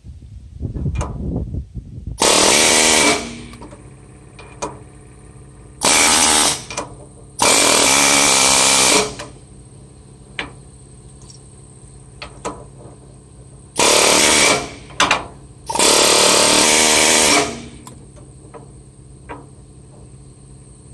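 Pneumatic air hammer with a flat punch hammering at a seized, rusted top link pivot pin on a Ford 660 tractor's rear end, trying to drive it out. It fires in five bursts of one to two seconds each: two close together about two seconds in, two more around six to nine seconds, and a last pair near the middle of the second half.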